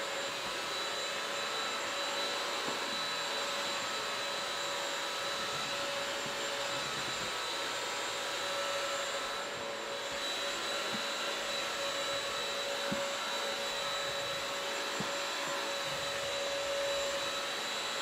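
Bissell CrossWave 1785A wet-dry vacuum mop running steadily as it is pushed over a hardwood floor: an even rushing sound of suction with a steady motor whine.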